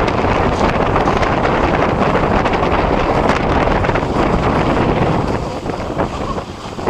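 Wind buffeting the microphone: a loud, dense rushing noise that eases about five seconds in.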